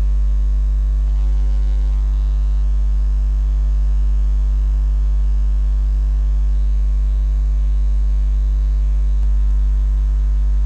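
Loud, steady electrical mains hum: a low drone with a stack of fainter overtones above it, unchanging throughout.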